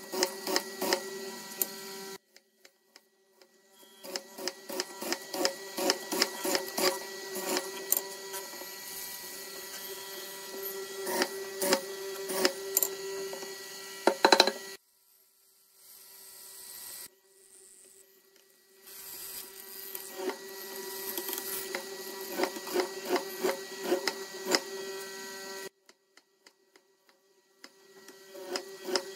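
Benchtop mortising machine running with a steady motor hum while its bit repeatedly plunges into a pine beam, giving a rapid run of sharp chopping clicks. The sound stops briefly a few times, about two seconds in, around the middle and near the end.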